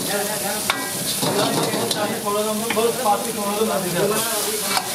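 Food being stirred with a metal ladle in a hot pan, sizzling and frying throughout, with a few sharp clanks of the ladle against the pan.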